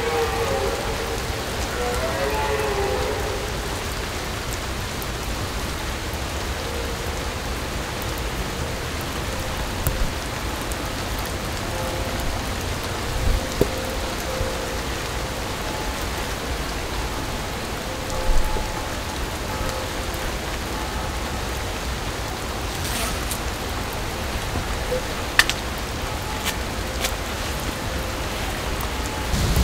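Steady hiss of rain falling, with a few faint drawn-out tones in the first few seconds and a few sharp ticks near the end.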